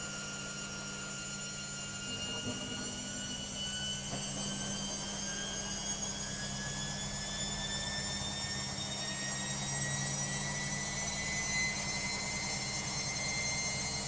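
Logik front-loading washing machine spinning up: a motor whine that rises slowly and steadily in pitch and grows a little louder as the drum gathers speed, over a steady low hum.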